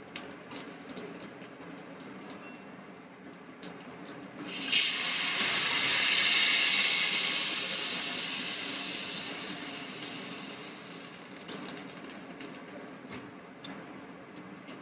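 Loud sizzling hiss as ladlefuls of rasam hit a small pan of hot tadka, the spices and garlic tempering in oil. It starts suddenly about four and a half seconds in, holds for about five seconds, then dies down, with a few light ladle clinks before it.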